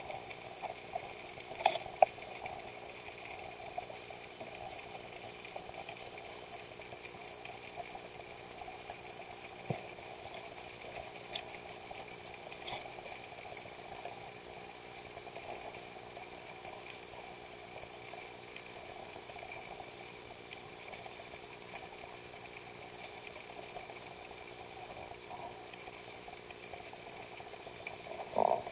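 Steady, muffled underwater noise heard through a camera's waterproof housing, with a few sharp clicks about two seconds in and a short knock near the end.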